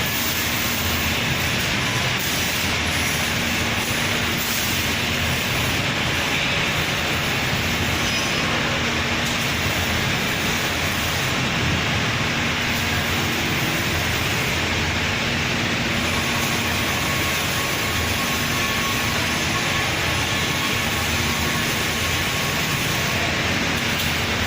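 Steady mechanical noise of an automated panel welding machine running, with a faint low hum that comes and goes in stretches of a few seconds.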